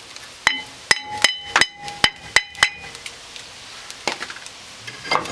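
A hammer striking the rear brake rotor of a Ford F-150 about eight times in quick succession, each blow leaving the iron rotor ringing, to knock the stuck rotor loose from the hub. Two softer knocks follow near the end.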